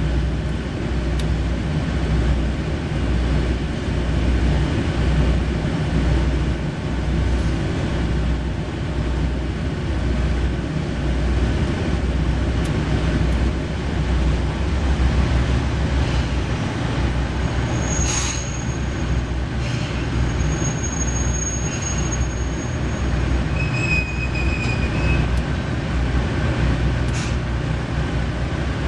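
KiHa 40 diesel railcar's engine idling with a steady, evenly pulsing low throb, heard inside the car while it stands at a station. In the second half come a few thin high-pitched squeals and light clicks.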